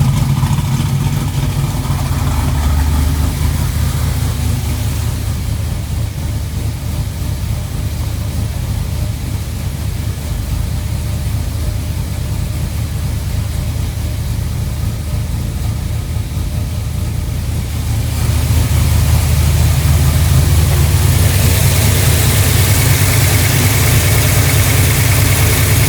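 Car engine idling steadily on a freshly rebuilt Holley 770 Street Avenger carburetor, getting louder about eighteen seconds in. It runs much better than it did but still needs some tuning.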